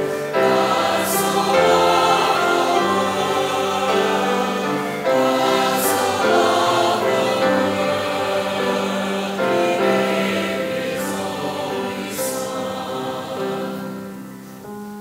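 Church choir singing an anthem, the voices growing softer near the end.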